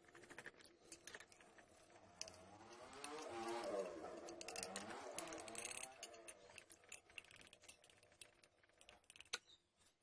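Quick, light clicking and tapping of small hand-work on small parts. In the middle, a louder whirring hum wavers up and down in pitch for about four seconds.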